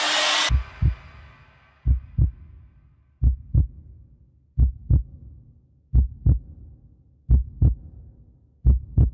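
A heartbeat sound effect in an electronic music mix: after the music cuts off about half a second in, seven paired low lub-dub thumps repeat slowly, about one beat every 1.35 seconds.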